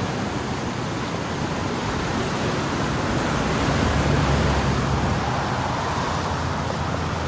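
Floodwater on the swollen Lampasas River rushing and pounding against a bridge, a steady roar. A deeper rumble swells up through the middle and eases off again.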